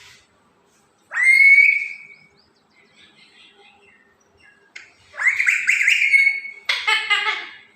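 Pet parrot calling: a loud call that rises and holds about a second in, a longer held call around five seconds in, then a harsher call with several tones near the end.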